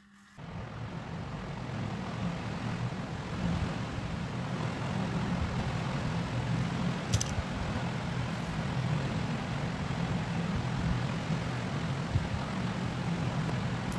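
A steady mechanical drone that cuts in just after the start, builds over the first two seconds and then holds steady, with one short sharp click about seven seconds in.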